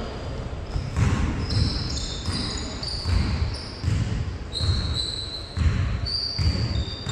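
Basketball bouncing repeatedly on an indoor court floor, with short high-pitched sneaker squeaks over it.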